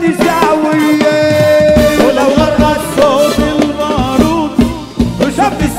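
Upbeat Middle Eastern dance music: an ornamented, bending melody over a steady drum beat.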